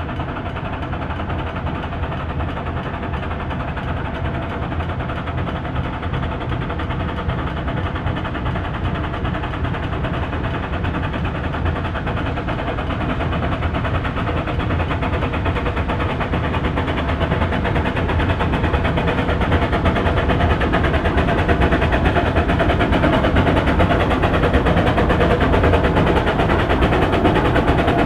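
Steam train running: the Climax geared locomotive 1694 working the train, a steady dense rumble of running noise that grows louder through the second half.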